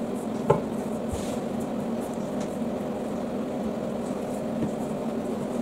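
Rolling pin rolling shortcrust pastry on a floured stone worktop: soft, faint rubbing strokes over a steady low hum, with one light knock about half a second in.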